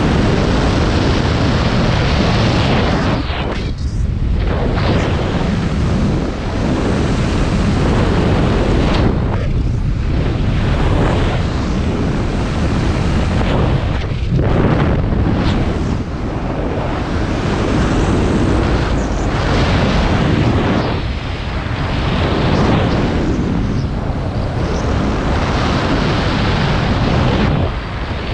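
Loud rush of wind over the microphone during fast flight low along a mountain slope. It swells and eases, with short lulls about 4, 10 and 14 seconds in.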